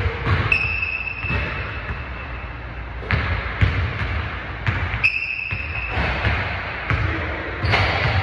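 Basketballs bouncing on a hardwood gym court, a string of irregular thuds as players dribble and shoot, with two short high squeaks, about half a second in and again about five seconds in.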